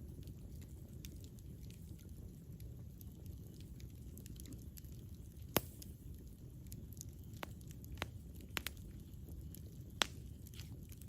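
Campfire burning, with a steady low rumble and scattered crackles and sharp pops of the burning wood. The loudest pops come about five and a half seconds in, two close together around eight and a half seconds, and one at ten seconds.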